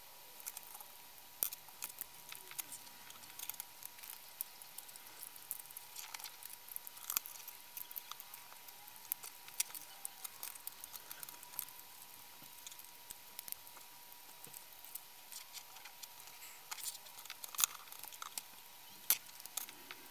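Irregular small clicks and taps of hard plastic housing parts and a circuit board being handled and fitted back together, as a clamp-on current probe is reassembled.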